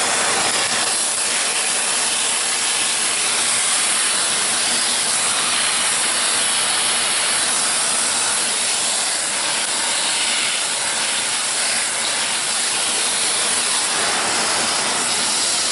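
Vacuum cleaner running steadily, its nozzle sucking up ash around a wood-burning stove's door.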